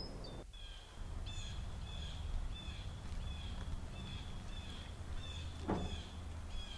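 A bird repeating a short, high chirp about twice a second, over a low background hum. A quick falling swoop sounds near the end.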